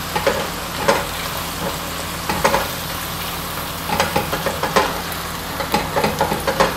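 Chopped onion, ginger-garlic paste, whole dried red chillies and diced tomato sizzling in hot oil in a non-stick wok, with a spatula stirring and scraping through them in short, irregular strokes.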